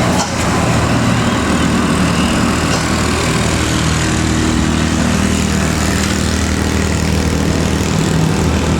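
Heavy diesel engine of a large bus running steadily nearby, a loud, even low drone.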